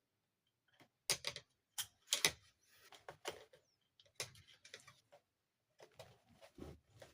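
Hard plastic toy parts being handled: an irregular string of sharp clicks and taps, some in quick clusters.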